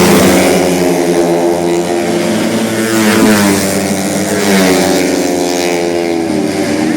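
Tuned 131cc automatic-scooter engines racing, several bikes at once, their engine pitch rising and falling as they pass.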